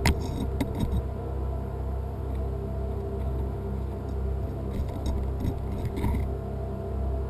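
Steady low hum of a running motor, with a few sharp clicks and light rattles near the start and again around five to six seconds in.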